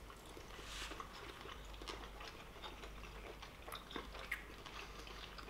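People quietly chewing mouthfuls of fresh homemade pasta, with a few small clicks, most of them a little past the middle.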